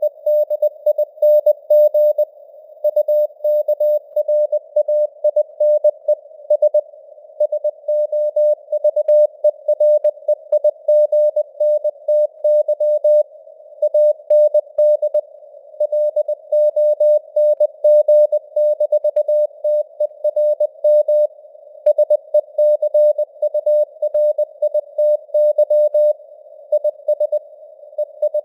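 Morse code sent at 20 words per minute: a single steady tone keyed on and off in dots and dashes, over a faint hiss of simulated radio noise, with the signal strength fading up and down (QSB).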